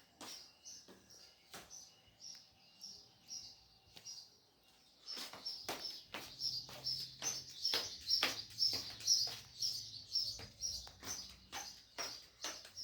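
Small bird chirping: short high chirps about three times a second, with sharp clicks scattered among them, thinning out for a couple of seconds and then coming thicker and louder about five seconds in.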